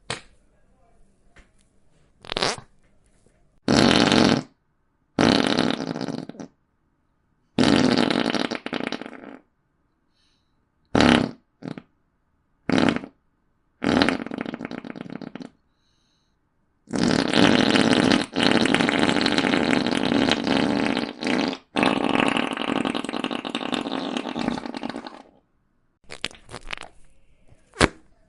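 A string of about ten fart sound effects, one after another with short silent gaps between. Most are short blasts of a second or two. Two long, drawn-out ones of about four seconds each come back to back in the second half.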